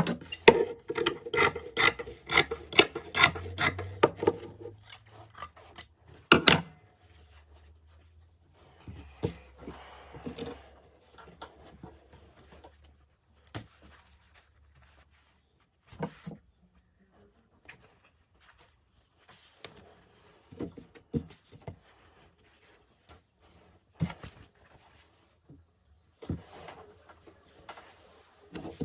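Fabric being cut and handled on a work table: rasping, rubbing cutting strokes with scattered clicks and knocks. A quick run of clicks fills the first few seconds, and a louder knock comes about six seconds in.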